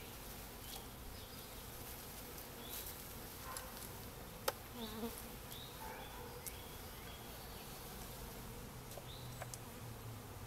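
A mass of honeybees buzzing steadily, freshly shaken out of a package into a new hive. A single sharp tap comes about four and a half seconds in.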